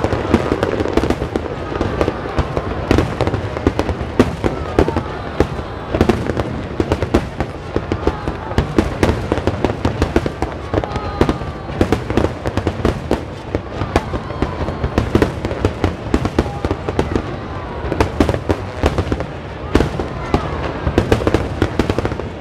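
Fireworks going off in a rapid, irregular stream of crackles and bangs.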